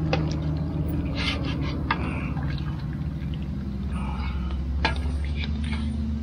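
Boil water draining and trickling back into the pot from a perforated aluminium strainer basket lifted out of it, with a few sharp clinks against the pot. A steady low hum runs underneath.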